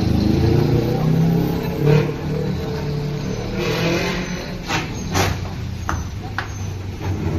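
A motor vehicle's engine running steadily with a low hum, with a few short sharp clicks in the second half.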